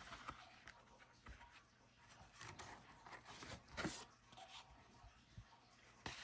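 Faint rustling and small clicks of a wallet and its packaging being handled, with one louder rustle about four seconds in.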